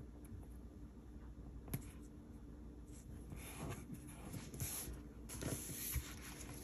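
Faint rustling and sliding of paper planner pages handled on a desk, mostly in the second half, with a light tap a little under two seconds in.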